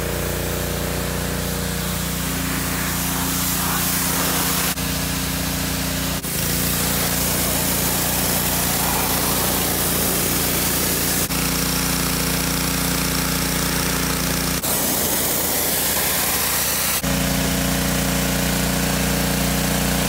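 Pressure washer running steadily, its wand spraying a jet of water with a hiss over a low machine hum. The sound jumps abruptly several times as the footage cuts.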